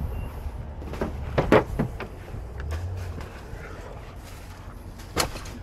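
Wind rumbling on the microphone, broken by a cluster of sharp clicks and knocks about a second and a half in as an SUV's door is unlatched and swung open. Another single sharp click comes near the end.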